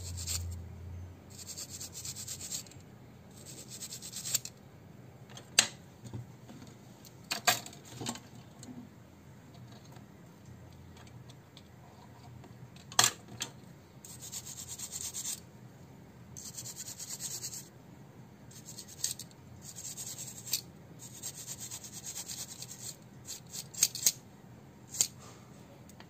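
Toothbrush bristles scrubbing a mobile phone's circuit board in repeated short strokes, a dry brushing hiss, to clean carbon deposits off the components around the headphone jack. A few sharp clicks break in now and then.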